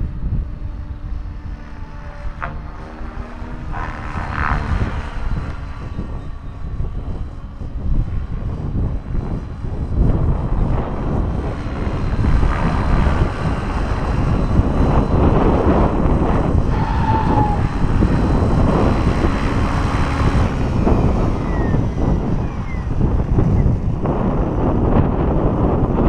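Electric Align T-Rex 600 RC helicopter in flight, its rotor and motor whirring, louder from about ten seconds in as it comes in low and close. Heavy wind buffets the microphone throughout.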